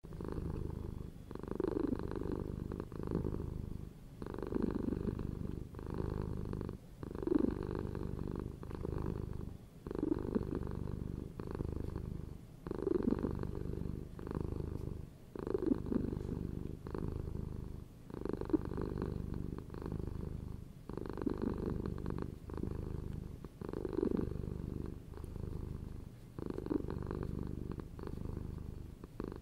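A cat purring steadily, swelling and easing in an even rhythm about every two and a half to three seconds as it breathes in and out.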